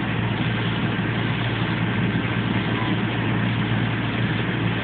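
Fire engine's engine running steadily, as it does while driving the pump for a hose in use, a constant low hum under an even rushing hiss.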